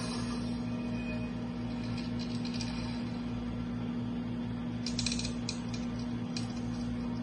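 A steady low hum, with a few faint clicks about five seconds in.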